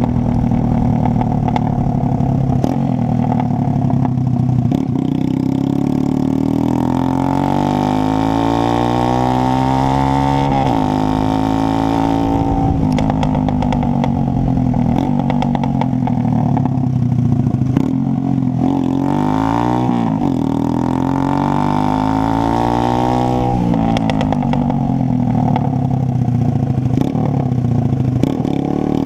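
Horizon 190 motorcycle engine running through an open Roncar exhaust with no silencer, loud and raspy. The revs climb in long rising sweeps and drop sharply, several times over, as the bike is ridden.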